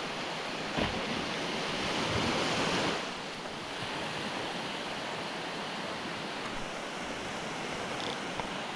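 Surf washing onto a sandy beach, a steady rush that swells and then falls away about three seconds in, with wind on the microphone. A brief low thump about a second in.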